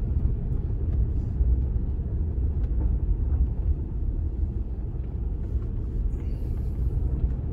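Steady low rumble of a vehicle driving on a dirt road, engine and tyre noise heard from inside the cab, with a few faint ticks.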